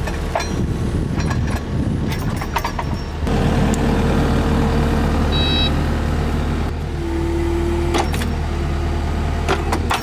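Diesel engine of a compact track loader running steadily, with a few short knocks and clicks. The sound changes abruptly about three seconds in, and a steady tone runs on from there.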